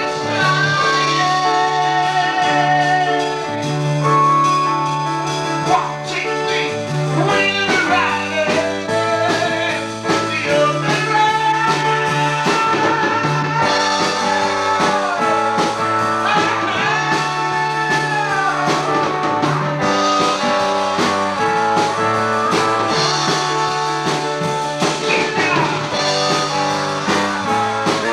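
A band's song playing, with sung melody over guitar, keyboard and a steady bass line.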